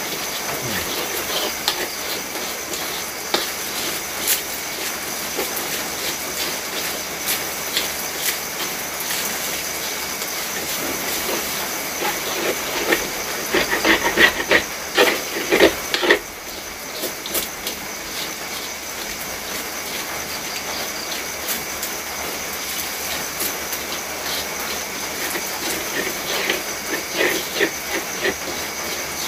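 Noodles and rice sizzling in a wok over a wood fire, a steady hiss. Stirring scrapes and knocks against the wok come in clusters, most around the middle and again near the end.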